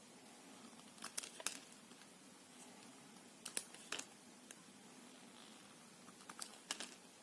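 Knife cutting into soft soap: three short runs of crisp clicks, each about half a second long, coming roughly every two and a half seconds.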